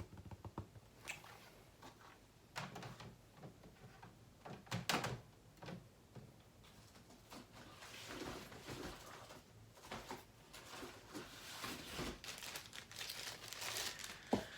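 Graded comic slabs and their packaging being handled: scattered knocks and clicks of hard plastic, then a long stretch of rustling and crinkling, with a sharp knock near the end.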